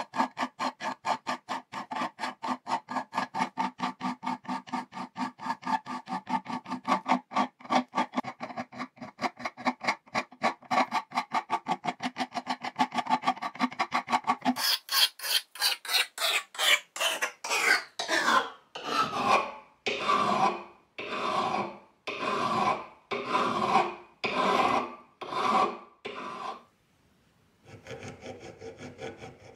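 Hand file rasping across the rusty metal handle bow of antique tailor's shears: short quick strokes, about four a second, for the first half, then slower, longer and brighter strokes about once a second. A brief pause near the end, then quick rubbing strokes start again.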